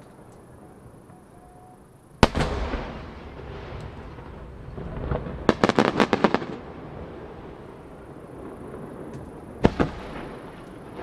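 Large aerial firework shells bursting. A deep boom about two seconds in echoes away, a rapid string of sharp cracks follows around the middle, and a second boom comes near the end.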